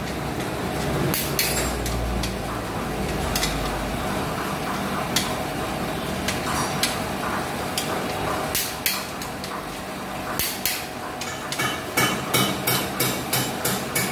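Torque wrench on the crankshaft main bearing cap bolts of a six-cylinder engine block, giving sharp metal clicks. They are scattered at first, then come in a quick, even run of about three a second near the end as the bolts are torqued to spec.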